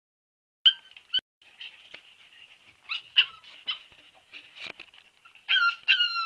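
Siberian husky puppy whining: short high-pitched whines about a second in, a thin whimpering after, and a few louder whines that slide down in pitch near the end.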